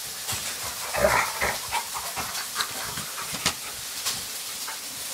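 Alaskan Malamute puppies play-fighting with a young adult malamute: short puppy vocal noises, the loudest about a second in, over scuffling and sharp clicks of claws on a tile floor, with a steady breathy hiss.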